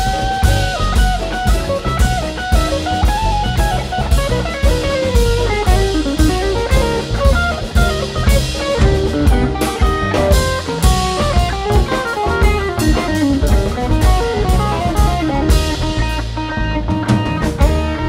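Live jazz ensemble playing: an electric guitar solo of quick single-note runs over upright bass and drum kit, with the horn section coming in with held notes near the end.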